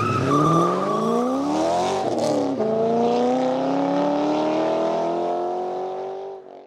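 Car engine accelerating hard through the gears: its pitch climbs, drops at a gear change about two and a half seconds in, then climbs again before fading out at the end.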